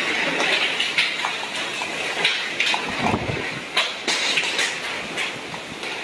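Storm wind rushing hard, with frequent rattling and knocking clatter, and a gust buffeting the microphone with a low rumble about three seconds in.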